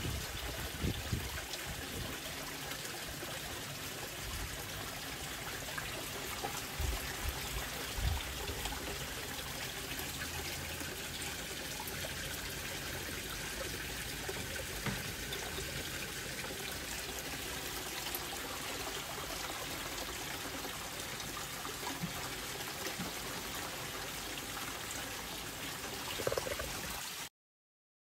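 Steady trickle of running water, with a few soft low bumps, cutting off abruptly near the end.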